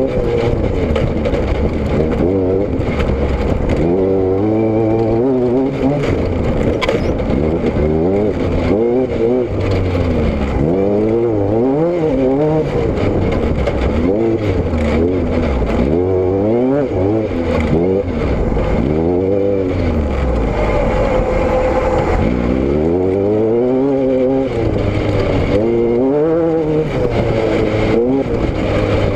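Car engine and exhaust under way, the pitch climbing and dropping again and again as it speeds up and eases off.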